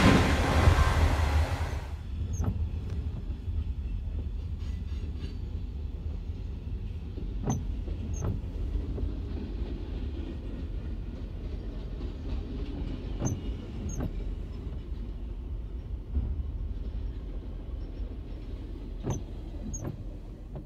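Slow freight train rolling past a grade crossing: a steady low rumble with a pair of sharp clicks about every six seconds.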